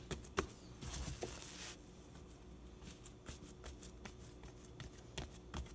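Hands folding and patting wet, gassy bread dough on a floured countertop: faint scattered soft pats and taps, with a brief rustling hiss about a second in.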